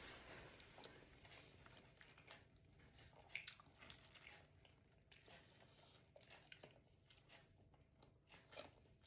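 A person chewing food close to the microphone, quietly, with scattered short mouth clicks and smacks; the sharpest come about a third of the way in and near the end.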